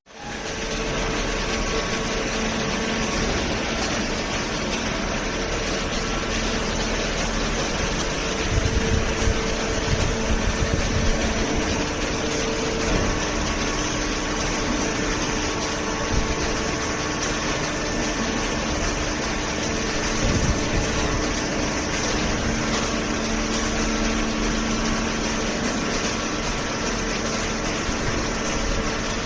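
Hydraulic baler running steadily: the electric motor and hydraulic pump give an even mechanical noise with a low hum, with some heavier low rumbling partway through.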